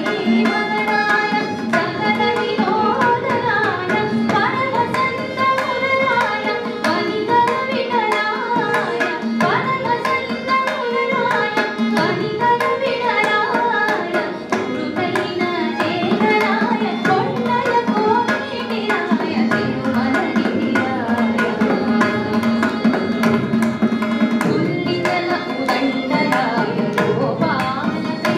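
A woman singing a Carnatic song to mridangam accompaniment, with a steady stream of drum strokes under the melodic line.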